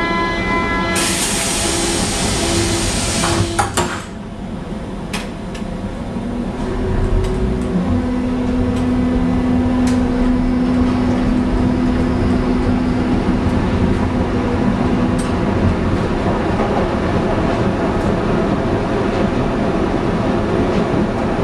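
Berlin U-Bahn small-profile train on line U1 departing a station. Door-closing warning beeps sound, then a loud hiss, and the doors bang shut about three and a half seconds in. The train then pulls away with a steady motor tone from about eight to fifteen seconds, over running noise with scattered rail clicks.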